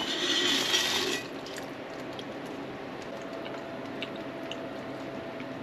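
A person eating a soft, wet mash of tofu and cereal: a short squelchy, wet burst in the first second, then faint chewing with small lip smacks.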